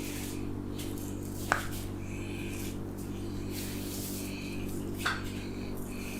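Hands rubbing over hair and scalp in a head massage, in strokes about once a second, over a steady low hum. Two sharp clicks stand out, one about a second and a half in and one about five seconds in.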